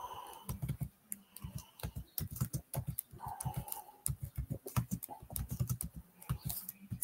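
Computer keyboard typing: quick, irregular keystroke clicks, several a second.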